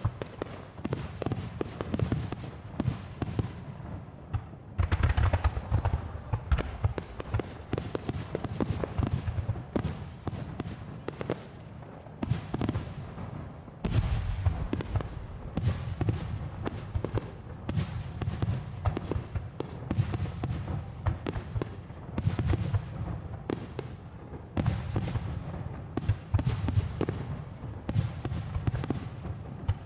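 Aerial fireworks shells bursting in rapid, continuous succession, with deep booms and crackling, heard close to the launch site. A faint steady high tone runs underneath.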